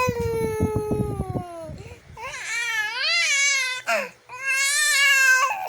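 A baby making loud crying sounds: a long held cry that slides down in pitch, with low thumping beneath it, then a warbling cry, then another long held cry near the end.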